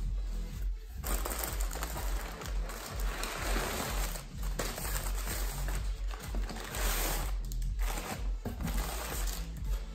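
Clear plastic air-cushion packaging crinkling and rustling as hands pull it out of a cardboard shipping box, loudest in uneven swells, over background music with a steady bass line.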